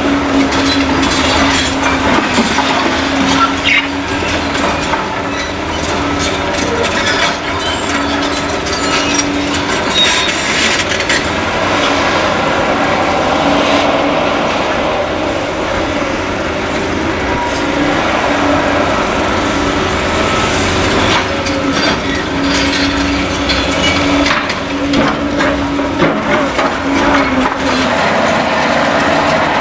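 Caterpillar excavators at work on demolition rubble: diesel engines running steadily with a humming tone that comes and goes, over a constant clatter of knocks and clanks from debris and metal.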